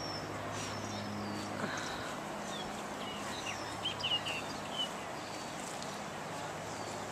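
Small birds chirping with short, quick sweeping calls, a flurry of them about four seconds in, over a steady background hiss.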